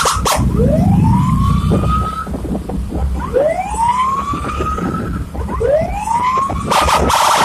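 Escort vehicle siren sounding a repeated upward-sweeping whoop, once every two to three seconds, over the low rumble of engines. Near the end it is cut across by a loud, harsh blast.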